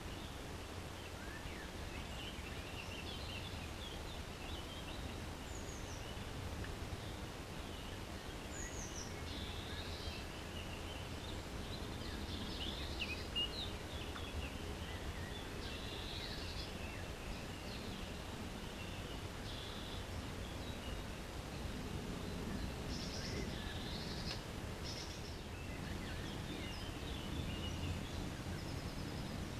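Small birds chirping and singing in quick, scattered phrases over a steady low background rumble.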